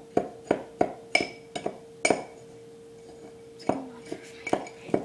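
A utensil clinking against a mixing bowl while stirring cinnamon and sugar together: a string of sharp, irregular clinks, a pause of about a second and a half in the middle, then more clinks. A faint steady hum runs underneath.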